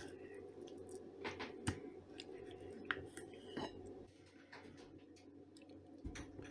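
A kitchen knife cutting through a soft roll of boiled salo on a ceramic plate, with a few sharp clicks as the blade and the pieces touch the plate, over a low steady hum.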